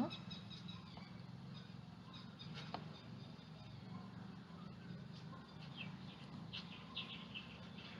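Faint steady background hum, with a few faint high bird chirps in the second half.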